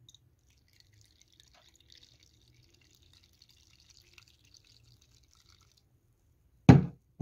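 Kombucha poured from a jug through a mesh cloth strainer: a faint, steady trickle and splash of liquid that stops about six seconds in. Near the end comes one loud thump, followed by a small click.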